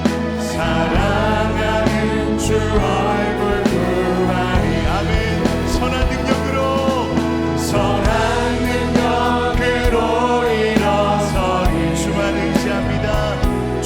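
Live contemporary worship band playing a slow hymn-like song, with singing over drums, bass and keys.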